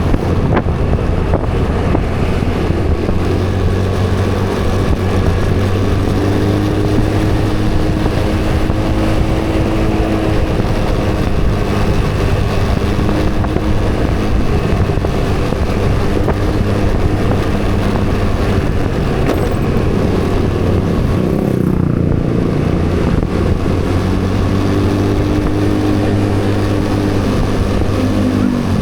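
Motor vehicle engine running steadily on the road, a constant low hum, with other engine tones rising and falling as speed changes.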